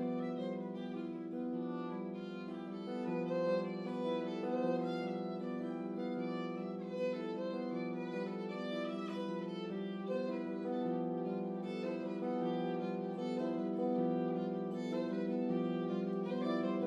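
Music for violin: bowed strings holding layered sustained notes, with quicker shorter notes moving above them.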